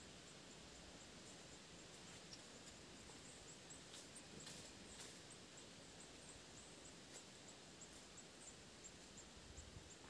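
Near silence: faint forest ambience, with soft, very high, short chirps repeating about every half second and a few faint clicks.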